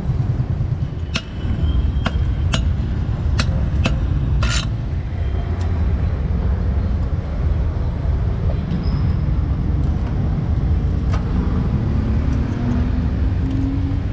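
Steady rumble of road traffic, with a quick run of sharp clicks and knocks in the first few seconds and an engine rising in pitch near the end.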